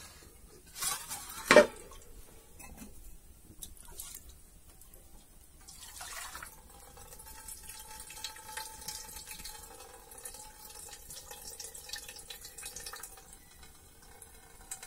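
A metal can clatters as it is handled and set in place over a steel bowl. About six seconds in, water starts to trickle steadily in a thin stream from the can into the bowl.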